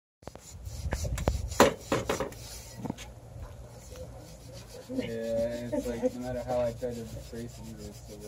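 Hay saw blade rasping and scraping through the cob at the top of an earthen wall. A run of short saw strokes comes in the first three seconds, followed by quieter scraping.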